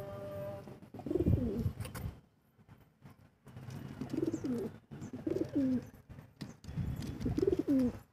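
Domestic pigeons cooing: four coos, each bending up and down in pitch, about a second in, near four, near five and a half and near seven and a half seconds.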